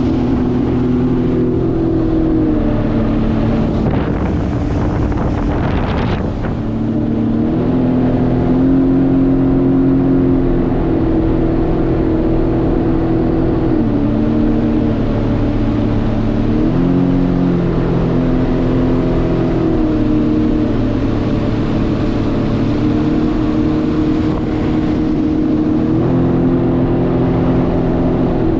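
Jet ski engine running under way, its pitch stepping up and down repeatedly as the throttle changes. A brief rushing noise comes about four to six seconds in.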